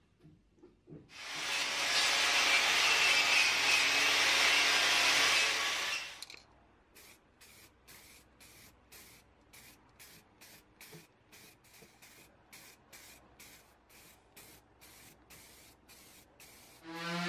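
Aerosol spray can spraying onto a steel table top in one long hiss of about five seconds. It is followed by a faint run of short ticks, about three a second.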